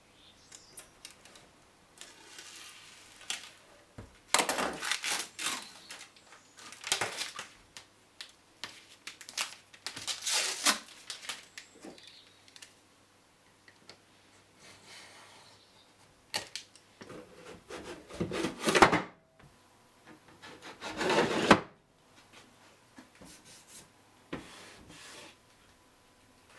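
Hand work on a wooden screw caddy with plastic panels: irregular clusters of clattering clicks, knocks and rubbing from the parts being handled and fitted, with quiet gaps between.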